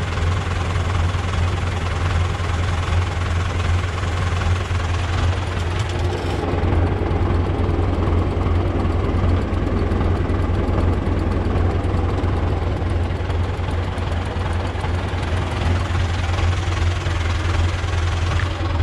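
Older Fendt tractor's diesel engine running steadily at a constant speed with a deep, even drone, heard from the tractor itself. The sound turns duller about six seconds in.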